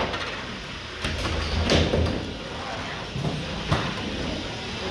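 Antweight combat robots colliding in the arena, giving a handful of sharp knocks and bangs at uneven intervals, the loudest about two seconds in and again near four seconds.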